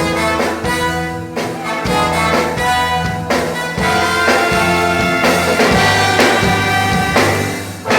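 Brass band with orchestra playing an instrumental passage of a gospel hymn: trumpets and trombones holding full chords over a steady drum beat.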